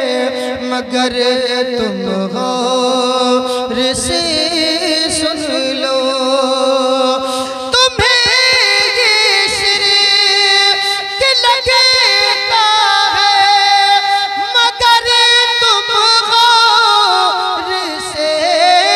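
A man singing a naat (Urdu devotional poem in praise of the Prophet) solo into a microphone, in long held notes with wavering ornaments and short breaks for breath.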